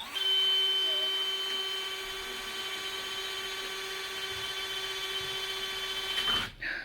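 Electric drill running at a steady high speed as it bores through the wall of a porch column, a steady whine that stops shortly before the end.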